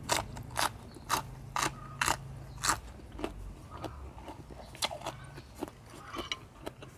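Crisp crunching of a raw green pod being bitten and chewed, about two crunches a second for the first three seconds, then softer, irregular chewing.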